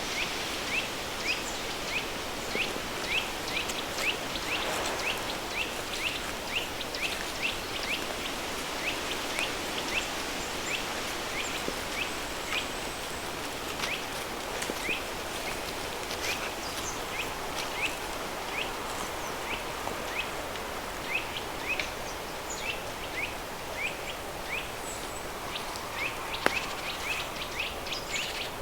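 River stream running under a steady bed of added pink noise, with short high chirps repeating about twice a second throughout.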